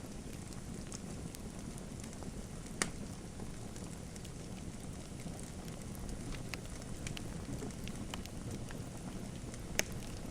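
Wood fire crackling in a fireplace: a steady low rumble of flames with scattered sharp pops and snaps, the loudest about three seconds in and again near the end.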